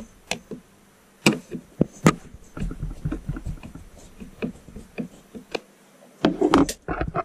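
Screwdriver turning small screws into a 3D-printed plastic fan duct on a 3D printer hotend: scattered clicks and knocks of the tool and plastic parts, a few sharper ones in the first two seconds and a denser run of knocks near the end.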